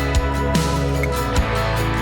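Background music: an electronic track with guitar and a steady beat.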